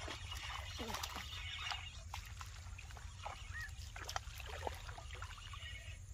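Birds calling in short chirps throughout. About four seconds in there is a splash as a small hooked fish is jerked up out of shallow marsh water on a fishing rod.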